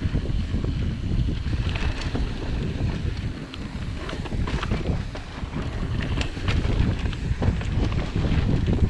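Wind rumbling on the microphone of a mountain bike ridden fast downhill, with tyre noise and scattered sharp rattles and clicks from the bike over rough trail.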